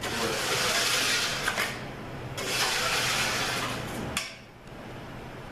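Two long hissing sprays of about two seconds each, with a short break between them, blasting oil off a disassembled transmission valve body.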